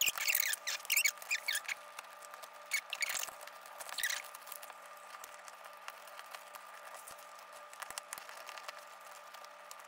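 Handling sounds of a laser-cut wood notebook cover being fitted onto a notebook: a quick run of small clicks, taps and rustles for about two seconds, a few more near three and four seconds in, then only occasional faint ticks over a faint steady hum.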